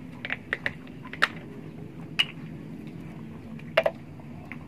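Scattered short clicks and crackles of people eating by hand off banana leaves and plastic plates, about eight in all, over a steady low background hum.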